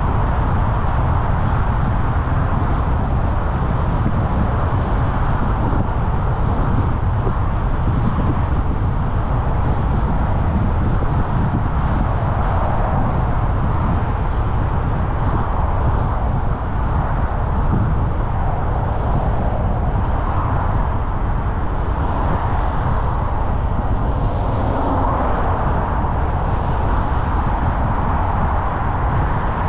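Steady rumble of a vehicle driving along a road, without change in pitch or level.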